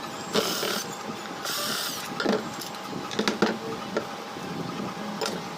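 Hand work on a ceiling fan's parts: two short scraping rasps, then a string of sharp clicks and knocks, over a faint steady hum.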